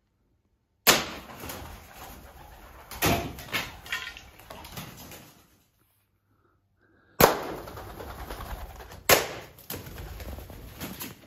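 Sharp knocks of air rifle shots and pellet strikes, each followed by the clatter of feral pigeons' wings as the birds flap off. There are two such bursts, with a dead gap between them.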